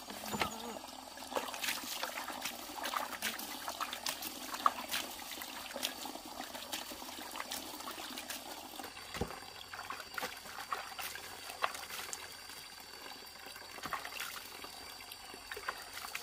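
Water trickling and running, with scattered small clicks and knocks.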